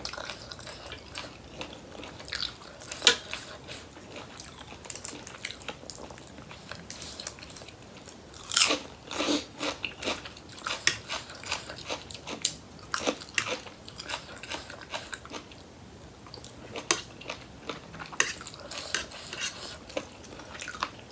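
Close-up chewing and crunching: a person eating a rice-noodle seafood salad with crisp raw vegetables, with irregular crunches and wet mouth sounds and a louder run of crunches about halfway through.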